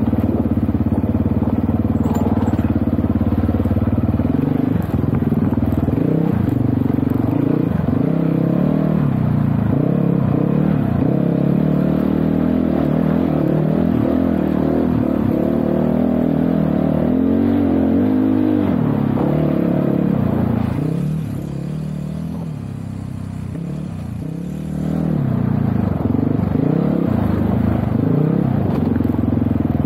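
GPX Moto FSE300R dirt bike engine revving up and down with the throttle while riding. For a few seconds after the two-thirds mark it eases off to a lower, quieter note, then picks up again.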